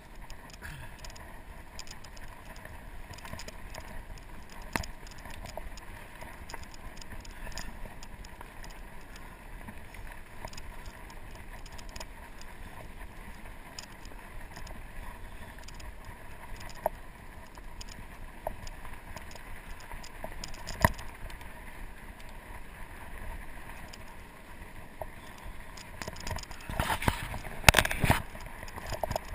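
Norco Sasquatch fat bike riding along a dirt trail: a steady rumble from the tyres, with occasional sharp knocks and rattles from bumps and a short burst of louder clattering near the end.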